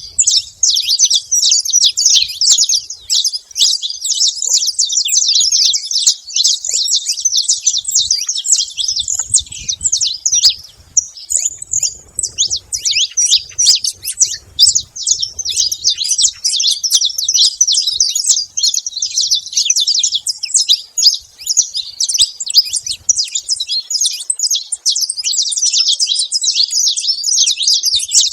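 Saffron finches calling continuously in a dense run of rapid, high chirps with hardly a break.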